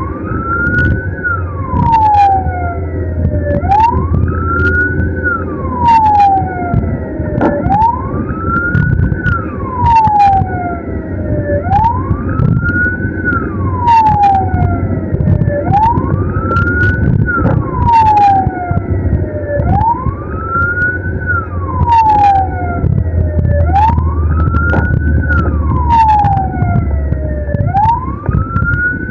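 Ambulance siren wailing, each cycle rising quickly and falling slowly, about one cycle every four seconds. Under it runs a low rumble of engine and road, with sharp clicks now and then.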